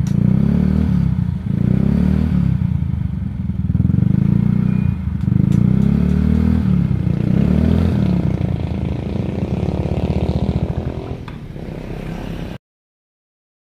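Yamaha Mio Smile scooter's single-cylinder four-stroke engine revved through an F2Racing aftermarket 'standard racing' exhaust, throttle blipped about every two seconds so the exhaust note swells and falls. Near the end it settles back toward idle, then the sound cuts off suddenly.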